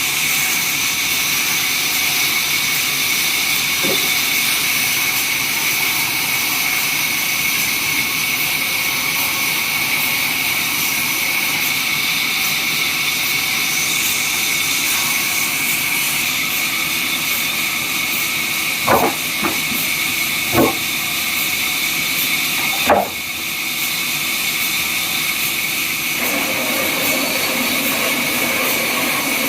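Sawmill saw running: a steady high whine with hiss. About two-thirds of the way through come three short, sharp knocks.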